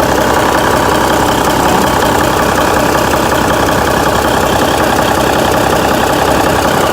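Semi truck's diesel engine idling steadily and loudly, heard at an exhaust just patched with clamps, wire and high-temperature repair tape, a temporary fix the driver calls not perfect.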